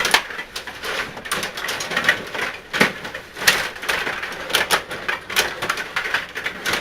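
Rod hockey game in play: a run of irregular sharp clicks and clacks as the players are spun and slid on their rods and the puck strikes them and the boards.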